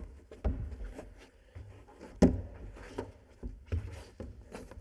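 A climber's hands and shoes knocking and scuffing on the holds and wall of an indoor bouldering wall during a strenuous top-out: irregular thumps and scrapes, with a sharper knock about two seconds in.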